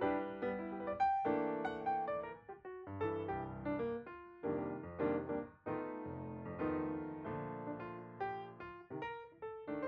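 Background piano music, a melody of struck notes over chords.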